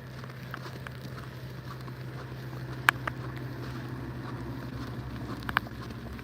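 A vehicle's engine running steadily with a constant low hum, and a couple of short, sharp clicks about three and five and a half seconds in.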